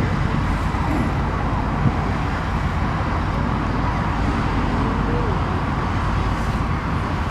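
Steady rumble of road traffic going by, with no single event standing out.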